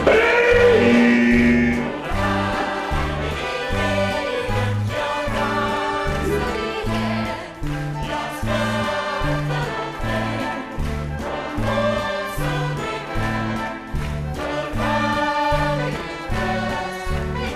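Musical-theatre song: voices singing over a band with a steady bass line of about two notes a second.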